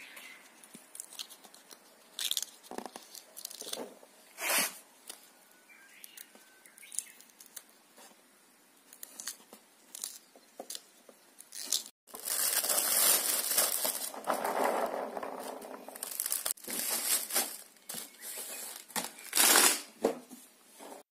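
Fresh pea pods being split open by hand, a crisp crack every second or so. A little past halfway this gives way to a thin plastic bag liner crinkling and rustling in a cardboard box as the shelled peas are packed.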